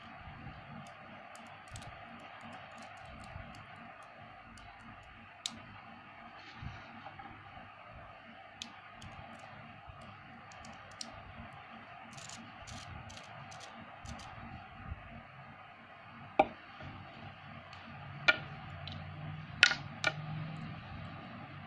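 Small neodymium magnet balls clicking as they snap together and are pulled apart by hand: scattered sharp clicks, a quick cluster about halfway through and the loudest few near the end, over a faint steady background.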